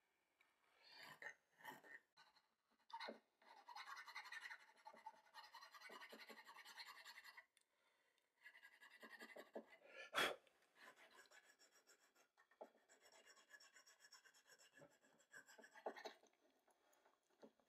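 Faint scraping and rasping of a small hand file and a pointed tool worked against the wooden edges of a plane's shaving escapement, in short strokes with a longer run of steady scraping. There is a single sharp click about ten seconds in.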